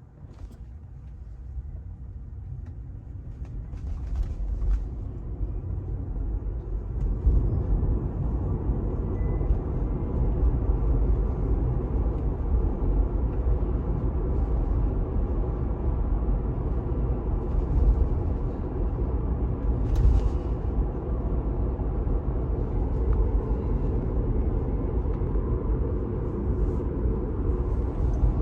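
Road and tyre noise inside the cabin of a 2018 Tesla Model 3, growing louder over the first several seconds as the car picks up speed, then steady at about 37 mph. The drive-unit whine is hardly audible after the drive unit's ground nuts were tightened.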